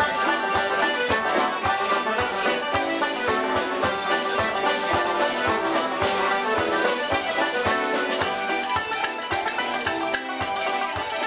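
Live Irish traditional music played by a small group of musicians: a lively tune over a steady beat.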